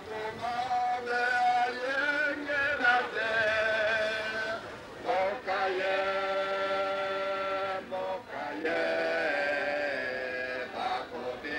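Male singing: a slow, chant-like mourning song in phrases with wavering pitch, one long held note near the middle, and short breaths between phrases.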